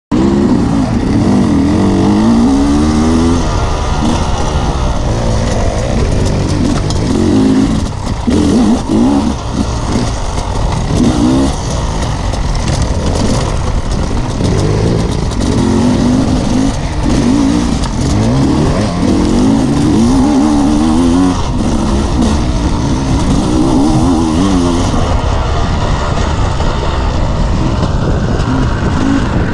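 Dirt bike engine heard from on board, riding hard: its pitch climbs and drops back over and over as the throttle is opened and shut through the gears.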